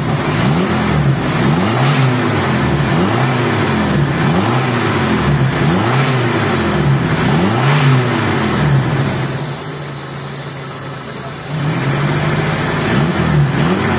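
Vehicle engine being revved up and down over and over, about once a second, and dropping back to a lower, quieter run for a couple of seconds near the ten-second mark before the revving resumes. The revving raises oil pressure to test whether engine oil is leaking through the oil cooler into the radiator coolant.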